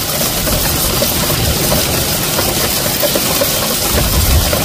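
Heavy hail and rain: large hailstones drumming and bouncing on a car roof and the ground in a dense, continuous clatter. A low rumble builds near the end.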